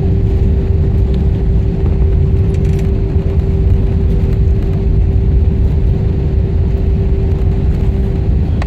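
Airbus A320 jet engines running: a steady, loud low rumble with a constant hum.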